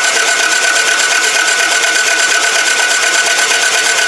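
Toyota Camry engine being cranked over by its starter motor, spinning fast and evenly with a steady starter whine and never catching. It is a no-start, which the title puts down to a broken timing belt.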